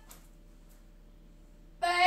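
Quiet room tone with a faint low hum, broken near the end by a voice shouting "Babe!".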